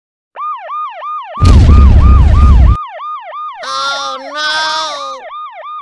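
Police car siren in a fast yelp, a wail rising and falling about four times a second. About one and a half seconds in, a loud rumbling noise runs over it for just over a second, and after that two blasts of a steady, chord-like tone sound over the siren.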